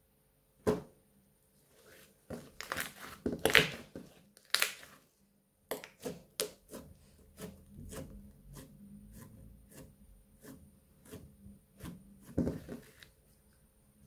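Purple slime being squeezed and kneaded by hand, giving a string of sticky clicks and pops, loudest in a cluster between about two and five seconds in.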